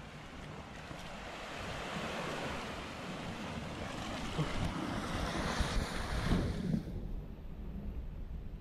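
Sea surf rushing on the shore, swelling for several seconds and then dropping away sharply about seven seconds in, over a low wind rumble on the microphone.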